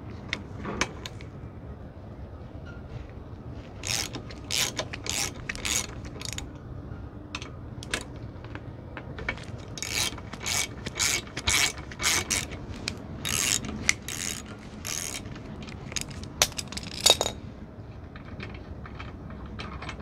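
Socket ratchet with a 14 mm socket clicking in repeated bursts as it is swung back and forth, loosening a motorcycle's front brake caliper bolts.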